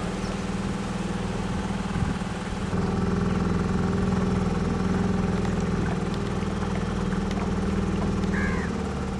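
The boat's engine running steadily, a low even drone; its tone shifts slightly about three seconds in.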